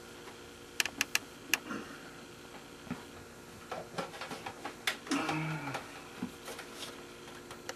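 Sharp clicks and light knocks from a wall-mounted wooden trophy plaque being handled and taken down. Four come in quick succession about a second in, and more are scattered around four to five seconds in, over a steady low hum.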